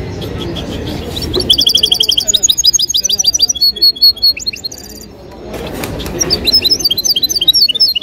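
Caged European goldfinches singing: fast runs of short, high twittering notes, breaking off about five seconds in and starting again a second later.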